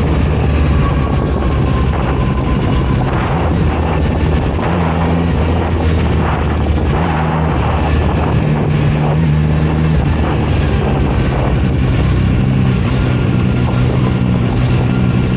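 Zontes 703RR sport motorcycle's three-cylinder engine running while riding, its pitch shifting up and down with the throttle.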